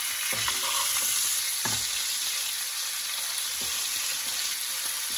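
Ribeye steaks sizzling steadily in hot butter in a frying pan while a spoon bastes them with the butter, with a few soft knocks of the spoon against the pan.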